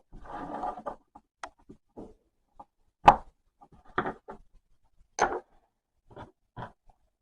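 Handling noises of small hard parts on a workbench. A brief rustle, then scattered separate knocks and clicks, the sharpest about three seconds in.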